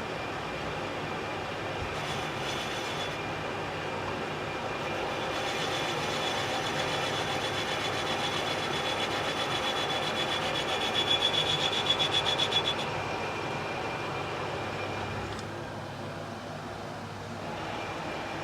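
Lathe running, with a high whine in the middle that pulses at its loudest before stopping.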